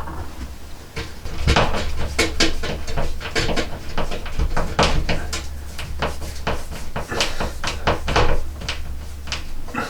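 Irregular sharp clicks and knocks of a battery smoke alarm's plastic mounting being handled and screwed to the ceiling.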